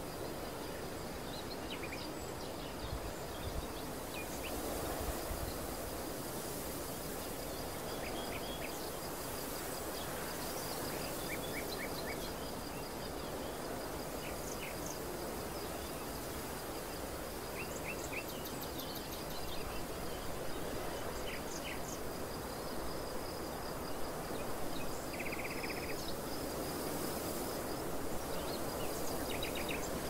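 Open-field ambience: a steady background hiss under a continuous high-pitched insect trill, with short bird chirps scattered throughout and a quick rattling trill about 25 seconds in.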